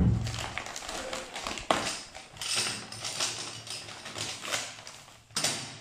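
Clear plastic bags crinkling and rustling as hands handle bagged parts, with sharp clicks and taps. One is about a second and a half in and another near the end.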